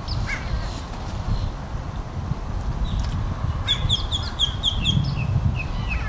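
Gulls calling: one call just after the start, then a quick run of about seven sharp, high calls partway through, trailing off into a few spaced calls near the end, over a steady low rumble.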